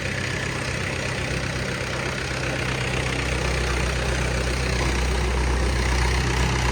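Tractor engine idling steadily, getting a little louder near the end.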